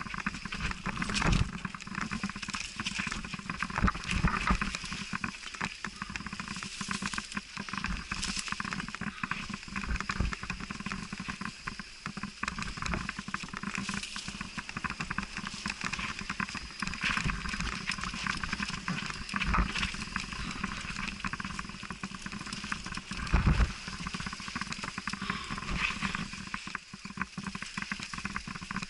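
Mountain bike descending a muddy, leaf-covered dirt trail: a steady rush of noise with constant rattling and knocking from the bike over the rough ground, and a harder knock about 23 seconds in.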